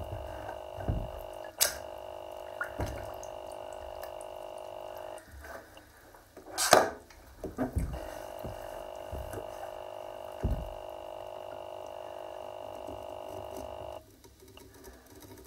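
Shoed feet sloshing and splashing in a bathtub of water, with several separate splashes and low thuds, the biggest about seven seconds in. Under them a tap runs into the tub with a steady hum that stops near the end.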